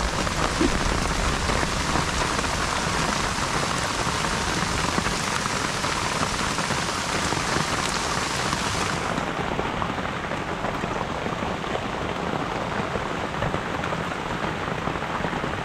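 Steady, even water-like hiss with no separate events in it; its sharper top end drops away about nine seconds in.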